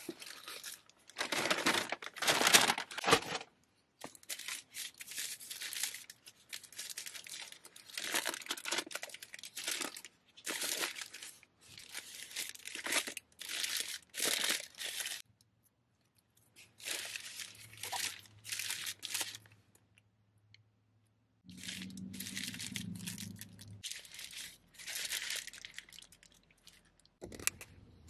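Paper food bag and sandwich wrapper rustling and crinkling in irregular bursts with short pauses, as food is pulled out of the bag and unwrapped.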